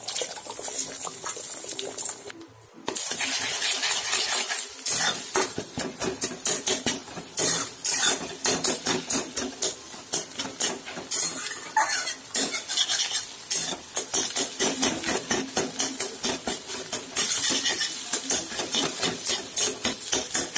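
Beaten eggs frying in hot oil in a kadai, sizzling, while a spatula stirs and scrapes them into scrambled egg against the pan. After a brief lull about two and a half seconds in, the scraping goes in rapid, repeated strokes.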